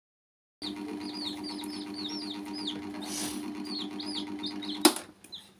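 Several young chicks peeping rapidly over a steady mechanical hum; the hum stops with a sharp click about five seconds in.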